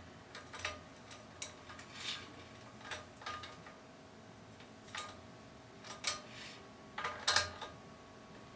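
Socket wrench tightening a bicycle crank arm bolt: a scatter of sharp metallic clicks and clinks at uneven spacing, several close together near the end.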